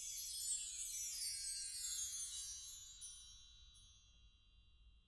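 Closing music sting: a high, shimmering, bell-like tinkle that falls in pitch and fades away about three seconds in.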